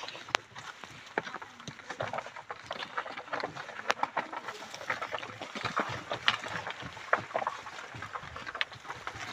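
Bullock cart rolling slowly over a dirt yard: irregular clip-clop of the two bullocks' hooves mixed with knocks from the wooden cart and its yoke.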